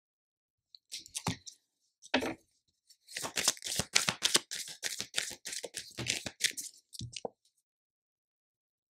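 Tarot cards being gathered and shuffled by hand: a few separate taps and slides, then a quick run of card flicks lasting about three seconds as the deck is shuffled, and a last tap near the end.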